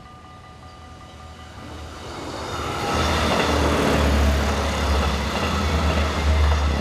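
A level-crossing warning bell rings with a fast pulse at first. From about two seconds in, a red diesel passenger train, an Arriva Stadler GTW, swells in and passes the crossing close by with a loud, deep rumble that drowns the bell.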